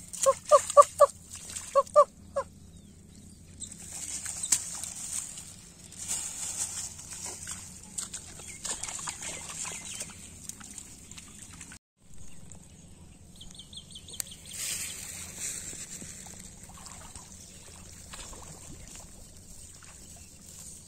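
Hands digging and squelching in wet, waterlogged mud at a mud crab burrow, under a steady high-pitched drone. A quick run of short pitched calls, like clucking, fills the first two seconds, and there is a brief rapid trill about thirteen seconds in.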